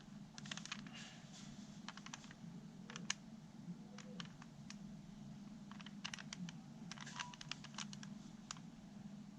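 Rubik's Cube being handled, its plastic pieces clicking faintly in scattered clusters of quick clicks.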